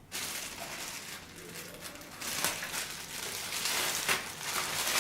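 Plastic packaging rustling and crinkling as small accessories are handled, with a few light clicks.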